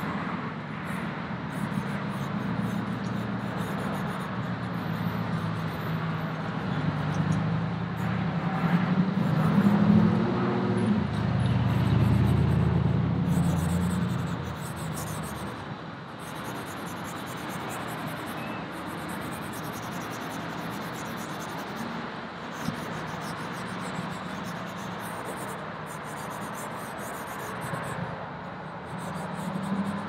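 Road traffic rumbling past, swelling to its loudest in the middle of the first half and fading away, over the scratching of a charcoal stick on sketch paper in short strokes, which is clearest once the rumble has died down.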